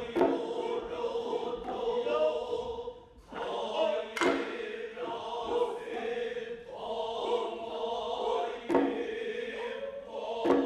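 Music of chanting voices holding long notes, marked by four sharp percussion strikes.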